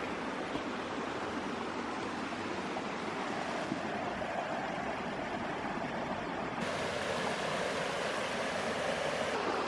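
Freshwater stream running over rocks: a steady rush of water. The hiss turns brighter for about three seconds from about two-thirds of the way in.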